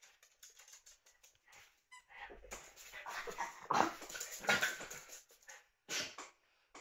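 Several Yorkshire terriers playing together, making a run of short, irregular dog play noises that are loudest in the middle of the stretch.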